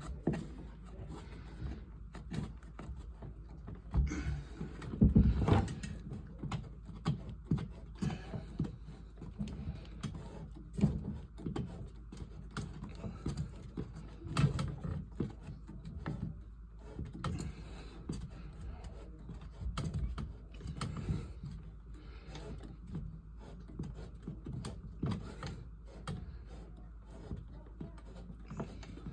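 Scattered knocks, clanks and scrapes of tools and parts being handled during a water heater installation, loudest as a cluster of thumps about five seconds in.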